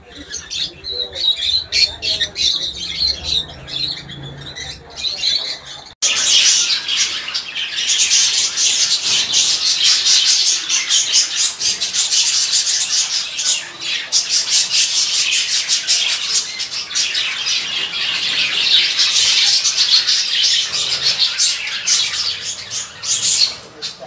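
Peach-faced lovebirds calling: separate high chirps for the first few seconds, then, from an abrupt change about six seconds in, a loud, dense, continuous shrill chatter and squawking.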